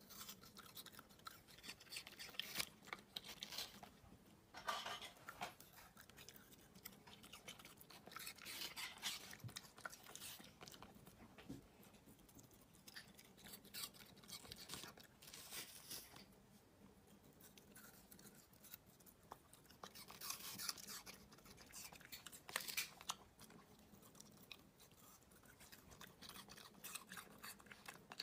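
Pembroke Welsh corgi puppy chewing small pieces of fruit, wet smacking and crunching in short bouts every few seconds, with light clicks of a wooden fruit fork against a plastic tub in between.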